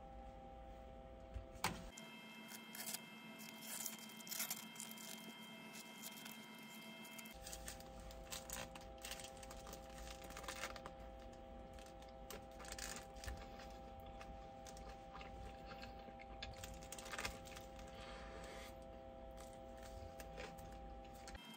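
Faint room tone with a low steady hum, and scattered small clicks and rustles of objects being handled.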